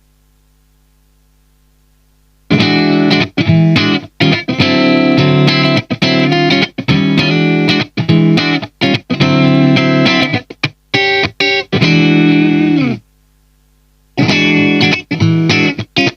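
SQOE SEIB950 electric guitar with humbucker pickups played on a clean tone: choppy chords and short phrases with brief stops. The playing starts about two and a half seconds in, stops for about a second near the end, then starts again. A faint amp hum fills the gaps.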